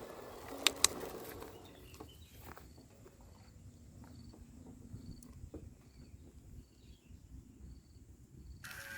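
Background music fades out, with two sharp clicks just under a second in. Then comes a quiet outdoor stretch with a faint, short high chirp repeating evenly, a little more than once a second. Music starts again just before the end.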